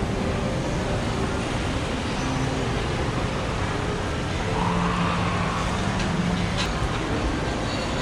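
Steady low rumbling background noise of a busy shopping mall's interior, with a few faint tones in it.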